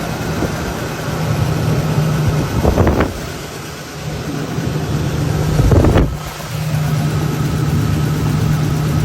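1994 Ford Ranger's 3.0 V6 engine running with a bad misfire, revved briefly twice, about three and six seconds in.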